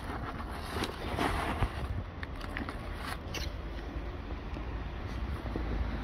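A kitten chewing dry kibble, irregular small crunches, most of them in the first half, over a steady low rumble.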